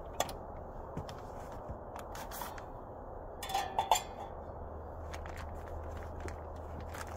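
Light metallic clicks and clinks of a maple sap-bag holder and its lid as a blue plastic sap bag is unhooked from the tap, with a short rattle and two sharp clicks about four seconds in. A steady faint background noise runs underneath.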